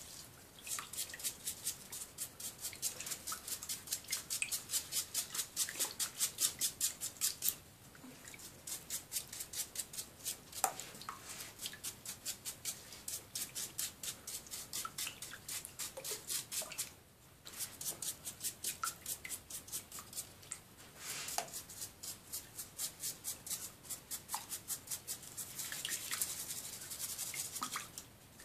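Toothbrush bristles scrubbing a wet hedgehog's spines in fast back-and-forth strokes, about five a second, with a few short pauses.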